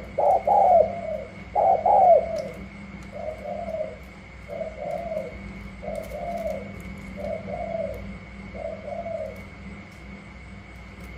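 Caged spotted doves cooing. Two loud coos come in the first two seconds, then five softer coos follow at an even pace, about one every 1.4 seconds, stopping about nine seconds in.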